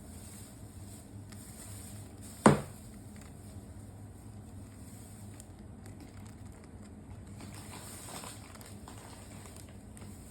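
A single sharp knock about two and a half seconds in, with a short ringing tail, over a steady low hum and a few faint ticks.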